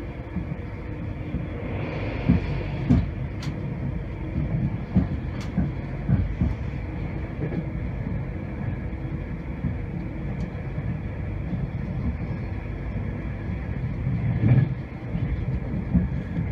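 Running noise of a Class 91-hauled LNER train heard from inside a Mark 4 passenger coach: a steady low rumble of the wheels on the rails, with scattered sharp clicks and knocks. There is a heavier thump near the end.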